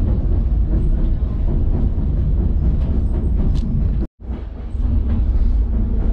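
Narrow-gauge White Pass & Yukon Route passenger car rolling along the track: a steady low rumble of wheels on rails with faint clicking from the rail joints. It cuts out for an instant about four seconds in.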